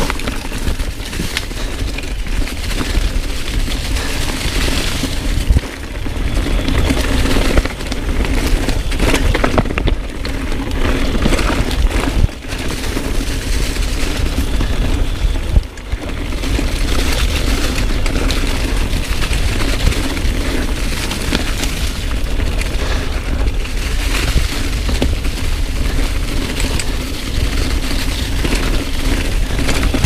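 Mountain bike descending rough, leaf-covered singletrack, heard from a camera on the bike: heavy wind buffeting on the microphone, with constant rattling and knocks from the tyres, chain and frame over rocks and roots.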